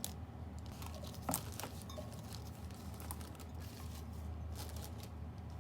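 Fresh-cut flowers and their wrapping being handled: light rustling and crinkling with a few sharp clicks, the loudest about a second and a half in, over a steady low hum.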